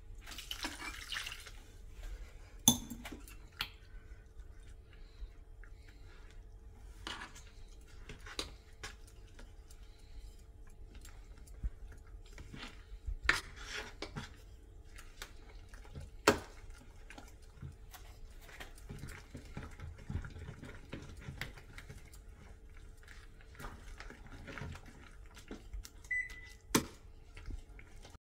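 A stainless steel spoon scraping and clinking in a steel pot as thick idli batter is stirred and mixed by hand, with a few sharper knocks of metal on metal. Water is poured into the batter from a steel tumbler at the start.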